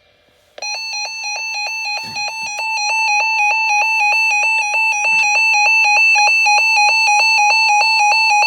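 Emergency alert attention tone for a severe thunderstorm warning: a loud, harsh electronic alarm that warbles rapidly between two close pitches, starting about half a second in and cutting off sharply at the end.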